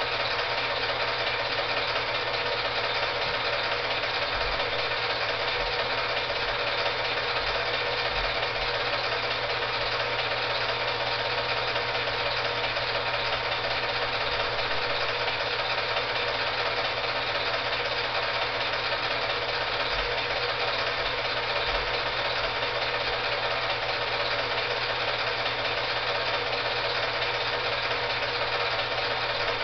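Steady mechanical whirring of a film projector running, with a constant low hum.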